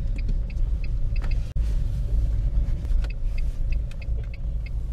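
Car engine and road rumble heard from inside the cabin as the car drives slowly, with faint light ticks scattered through it.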